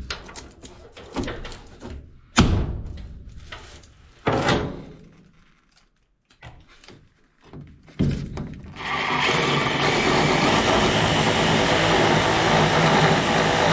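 A few knocks and clunks of parts being handled, then from about nine seconds in a drill runs steadily, spinning a screw that won't go through the furnace panel without a pilot hole.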